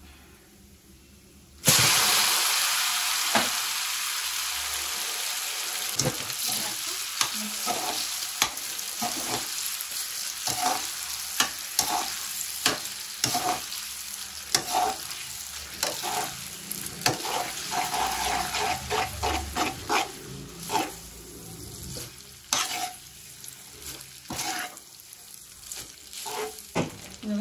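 Drained spaghetti dropped into hot olive oil in a metal kadai, setting off a sudden loud sizzle about two seconds in that carries on and slowly eases. Through it, metal tongs toss the pasta, clicking and scraping against the pan many times.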